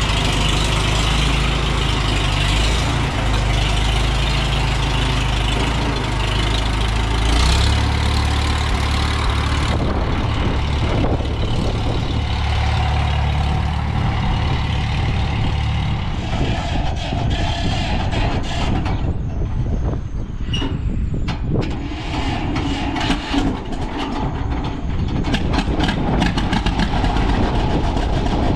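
Farm tractor engine running. Its low note shifts about seven seconds in, and from about sixteen seconds on it turns rougher and more uneven.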